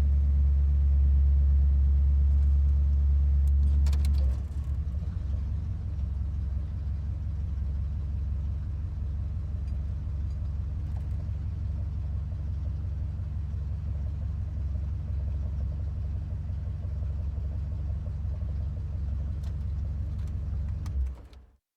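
Monster truck engine running with a deep, loud rumble for about four seconds, then dropping back to a steady, lower idle that fades out near the end.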